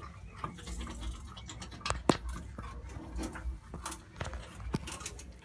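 Porcupine moving about on a concrete floor: scattered small clicks and scratches, with one sharp click about two seconds in.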